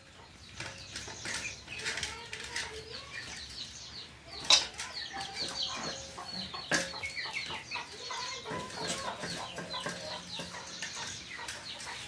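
Chickens clucking and chicks peeping in quick high chirps, over rustling, with a couple of sharp knocks about four and a half and seven seconds in.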